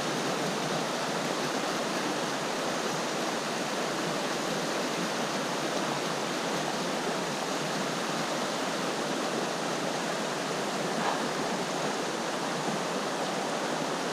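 River current rushing steadily: an even, unbroken water noise.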